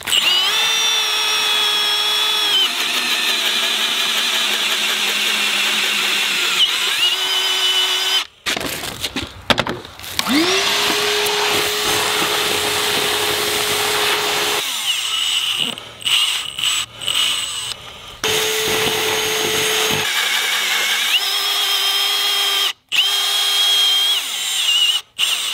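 Milwaukee M18 Fuel hammer drill boring a 2-inch bit down into a green ash log. Its motor whine sags in pitch as the bit bites in and loads up. It runs in several goes, stopping and spinning back up with a rising whine.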